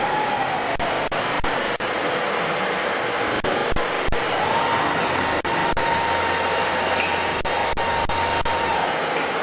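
Donatoni Rapid 900 CNC stone bridge saw and milling centre running, a steady loud machine noise, with a faint whine that comes in about halfway and drops away near the end.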